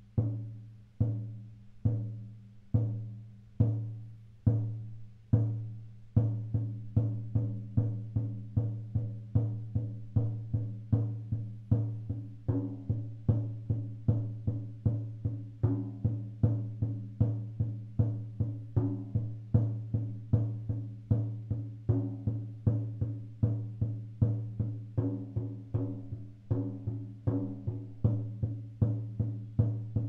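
20-inch oval goat-skin shaman drum struck with a soft ball-headed beater, a steady beat of deep ringing strokes. The strokes come about one a second at first, then quicken to about two a second after some six seconds.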